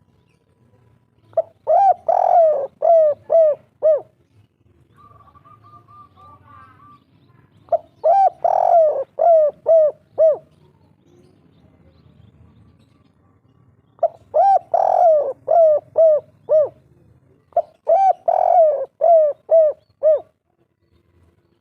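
Spotted dove (tekukur) singing its 'kuk 3' coo song: four phrases, each a run of about six to seven short coos, with a faint high trill from another small bird between the first two phrases.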